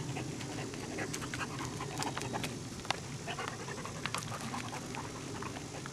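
A hunting dog panting hard close by, with scattered clicks and crunches of steps on a stony track.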